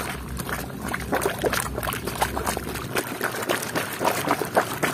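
Water splashing and sloshing in a tub as a hand scrubs a plastic toy motorbike under the muddy water, with many irregular small splashes.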